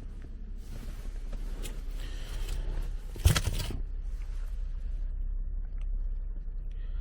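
A car's rear door being handled: rustling, then one sharp latch clunk about three seconds in, over a low steady rumble.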